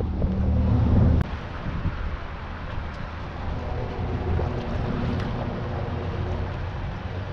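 Steady low hum of a motorboat engine running nearby, over a haze of wind and water noise on the microphone. A louder low rumble in the first second cuts off suddenly.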